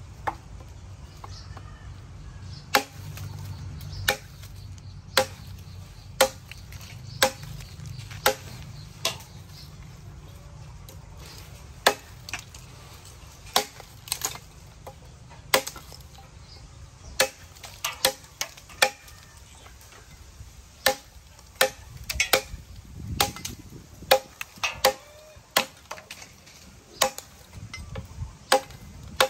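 A handmade steel cleaver, forged from a tractor disc, chopping sticks and green stems on a wooden log. The chops are sharp, about one a second, and come faster and closer together in the second half.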